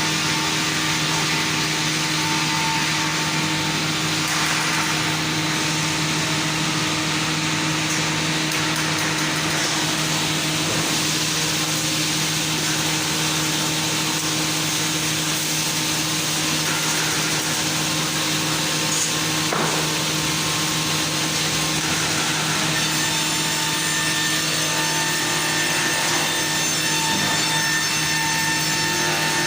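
Circular-saw beam-squaring mill running steadily, sawing wood, with a constant hum under the cutting noise.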